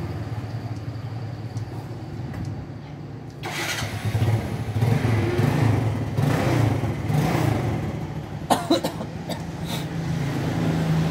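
Motorbike engine running in street traffic, with a steady low hum that swells louder about three seconds in. Two sharp clicks come near the end.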